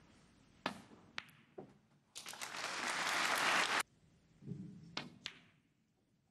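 Snooker balls clicking: cue on cue ball and ball striking ball, a few sharp knocks. Then the audience applauds briefly for about two seconds, the loudest sound, followed by a few more ball knocks.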